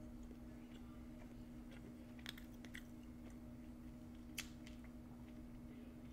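Mouth sounds of someone chewing a bite of chicken: soft scattered wet clicks, the sharpest about four seconds in, over a steady low hum.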